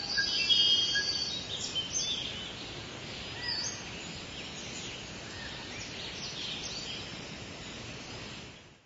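Outdoor ambience of several birds chirping and calling over a steady background hiss, with the calls busiest in the first three seconds; it fades out at the end.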